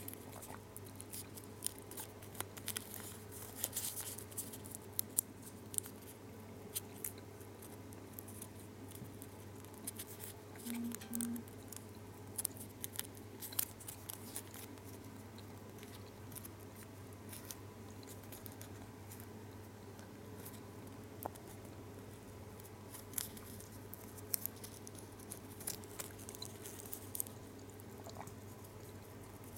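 Lotte Xylitol gum's silver foil wrapper faintly crinkling and crackling as fingers fold and crease it, in scattered small clicks, over a steady low hum.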